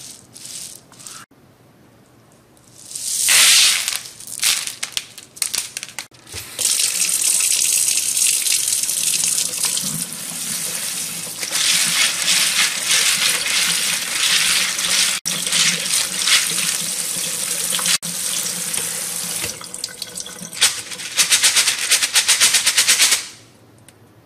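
Tap water running into a plastic colander of dry pinto beans as a hand stirs them to rinse them. The water shuts off near the end.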